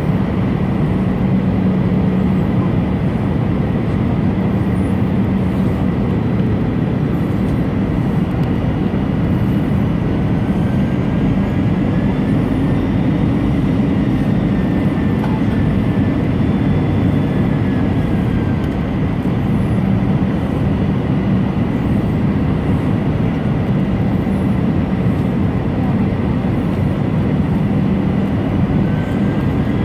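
Steady cabin noise of an Airbus A319 on final approach, heard from a seat beside the engine: jet engine and airflow noise with a low hum and a thin, steady high tone.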